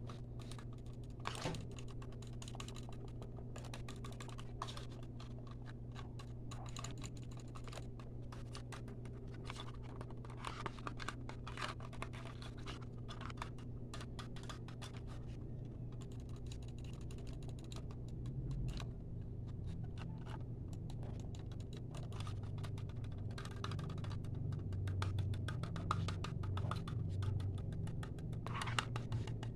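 Fast ASMR tapping: a dense, rapid run of light taps and clicks, over a steady low hum.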